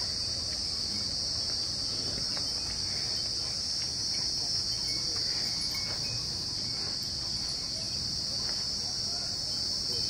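Steady, high-pitched insect chorus, an unbroken shrill drone with no pulses or breaks, over faint low background noise.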